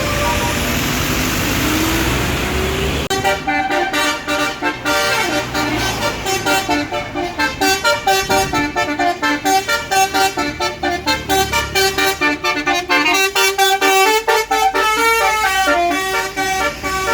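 A bus's basuri telolet horn, a multi-trumpet air horn, plays a fast melody of short, quick-changing notes starting about three seconds in. Before it there is vehicle engine noise with a tone rising in pitch.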